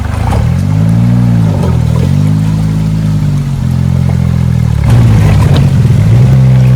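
Suzuki Jimny JA11's small three-cylinder turbo engine revving up and falling back again and again, about four swells, as it works up a rocky waterfall, with knocks and clatter from the wheels on rock.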